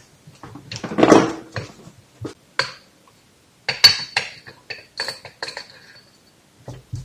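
Metal clinks and rattles from a socket tool and steel parts as the bottom bolt of a moped's Showa fork leg is undone and comes out: scattered sharp clicks, a few with a short high ring about four to five seconds in.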